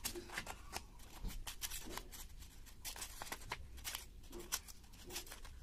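Scissors snipping through craft paper, cutting it into a fringe of strips: a run of short, crisp snips with paper rustling.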